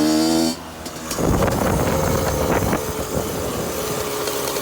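Dirt bike engine running with a slightly rising note that cuts off abruptly about half a second in. About a second in, the bike is heard under way: a steady engine note under heavy wind buffeting on the microphone.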